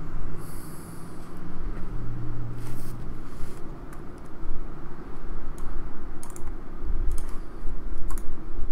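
Scattered clicks of a computer mouse and keyboard, mostly in the second half, over a steady low rumble.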